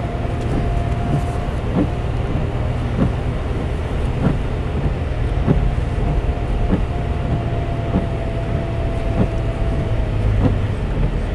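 Toyota FJ Cruiser's 4.0-litre V6 and tyres heard from inside the cabin while driving on snow-covered roads: a steady low rumble, with a thin steady whine through most of it and faint regular ticks about every second and a quarter.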